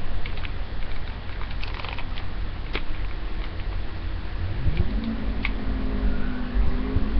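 Hair being brushed and handled close to the microphone: scattered crackles and rustles over a steady low rumble. About two-thirds of the way through, a low pitched tone comes in, rising and then holding.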